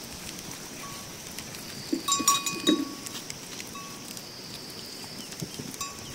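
Small metal bells on goats clinking a few times, about two seconds in and again near the end, over a steady high-pitched drone.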